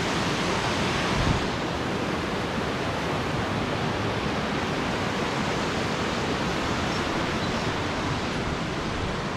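Steady outdoor rushing noise, an even hiss with no distinct events, and one low thump about a second in.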